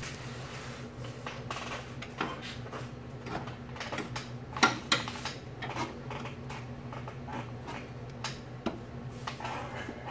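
Scattered light metallic clicks and knocks as a metal transmission dipstick tube is worked by hand past the exhaust and chassis parts under the truck. The two sharpest knocks come close together a little before the middle, over a steady low hum.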